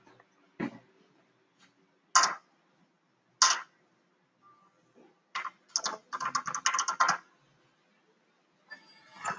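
Keycap keys of a Divoom pixel-art speaker being pressed: a few single clacks spaced a second or more apart, then a quick run of typing about five seconds in.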